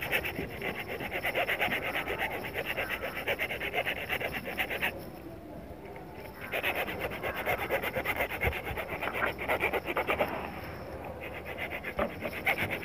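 A hand-held hacksaw blade sawing through the steel wire armour of an armoured power cable in quick back-and-forth strokes. The sawing stops for about a second and a half partway through, then resumes, easing off briefly near the end.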